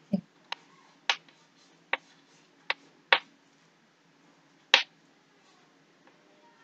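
Chalk tapping and scraping against a blackboard as a numeral and a rupee sign are written: about six sharp, irregularly spaced clicks.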